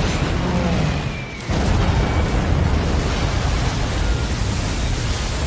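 Film battle sound effects of a warship under air attack: a continuous rumble of explosions and blast noise. It drops away briefly about a second in, then cuts back in at full loudness.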